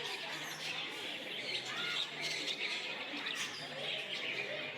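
Many small caged birds chirping at once, a busy overlapping chatter of short, high calls.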